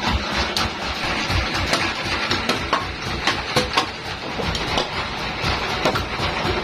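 Sawmill machinery running with a low rumble and irregular knocking and clattering.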